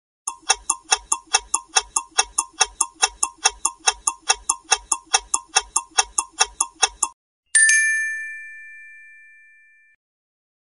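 Quiz countdown-timer sound effect: a clock ticking quickly, about four ticks a second, for about seven seconds. Then comes a single bright bell-like ding that rings on and fades away over about two seconds.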